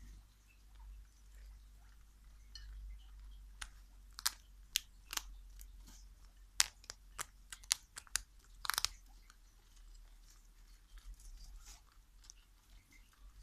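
Two guinea pigs biting and chewing a dry pressed treat held in a hand: soft nibbling, with a burst of about a dozen sharp crunches in the middle.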